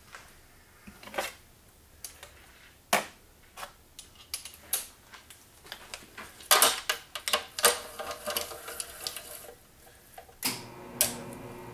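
Metal clinks and knocks as a TH400 transmission's oil pan is fitted and its bolts are run in with a hand ratchet, which clicks rapidly for a few seconds in the middle. A low steady hum comes in near the end.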